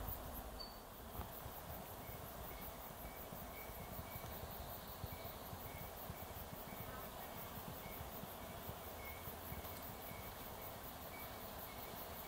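Outdoor ambience of insects calling. A short high chirp repeats about three times a second, and a rapid series of very high pulses runs beneath it, over a low rumble of wind.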